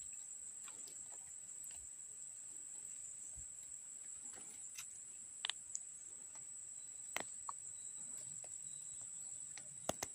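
Steady high-pitched insect chirring, with a few faint clicks.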